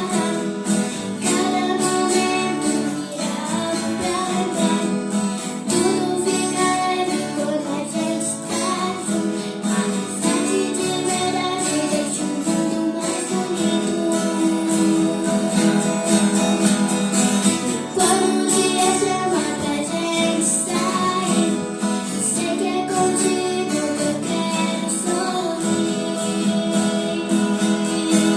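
A song: a female voice singing over strummed acoustic guitar.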